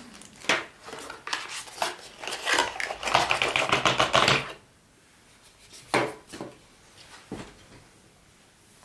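Hands handling the kit's small hard items and packaging: a busy run of clicking and rattling for about four and a half seconds, then a few separate clicks.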